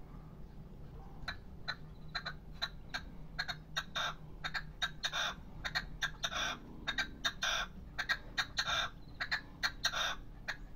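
Young male red-legged partridge in a decoy cage calling: a long series of short, clipped notes, about two or three a second and sometimes in quick clusters, starting about a second in.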